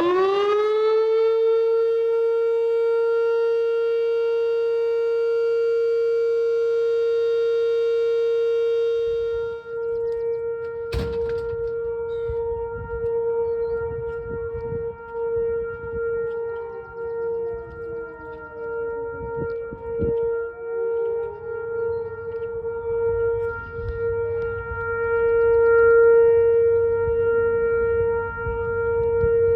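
Whelen WPS-2750 electronic tornado warning siren sounding a steady alert tone on test. It climbs quickly in pitch at the start, then holds one steady pitch with many overtones. From about ten seconds in its loudness swells and fades again and again over a low rumble, with a single sharp knock about eleven seconds in.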